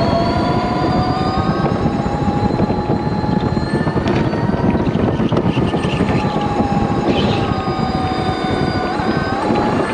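Electric go-kart's motor whining, its pitch rising and falling with speed, over a steady rumble of noise.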